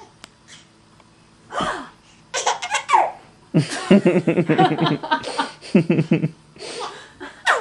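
A baby giggling and a woman laughing along, in several bursts; the longest and loudest stretch of laughter runs from about three and a half seconds to past six seconds.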